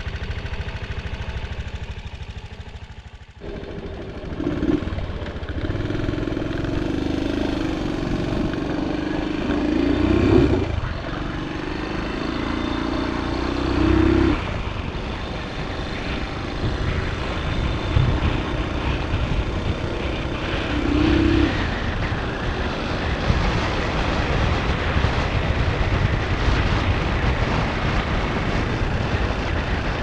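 1981 Honda Benly CD90's small single-cylinder four-stroke engine running, then pulling away on the road. Its note rises and drops away several times in the first twenty seconds, over a steady rush of wind and road noise.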